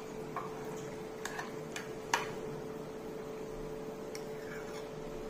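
A few light clicks and taps of a steel spoon against glass bowls while chopped onion and sauce are mixed and sauce is spooned in, the sharpest about two seconds in, over a faint steady hum.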